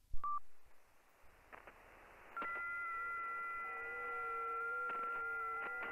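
Ham radio transceiver audio switching from transmit to receive with a click and a short beep, then receiver hiss. About two and a half seconds in, several FT8 digital signals on the 40 m band start together: steady tones at different pitches, each stepping slightly up and down in pitch, with occasional static clicks.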